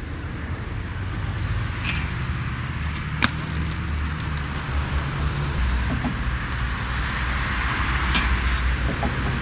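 Inline skate wheels rolling on pavement, a steady rumbling hiss that swells near the end, with three sharp clacks of skates striking the ground or an obstacle.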